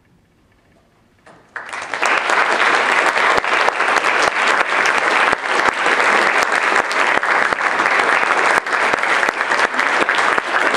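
After a hushed pause, an audience bursts into applause about a second and a half in, and the clapping carries on steadily.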